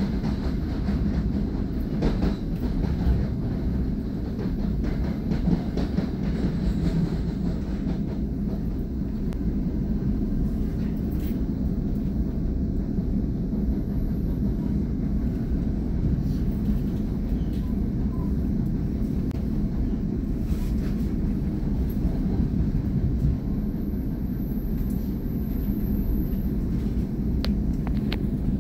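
NJ Transit commuter train running along the track, heard from inside the passenger car as a steady low rumble with a few faint clicks from the rails.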